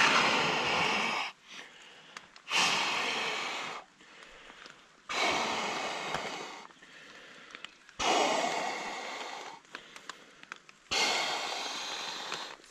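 A man inflating an inflatable sleeping pad by mouth: five long, forceful breaths blown into its valve, one about every two and a half to three seconds.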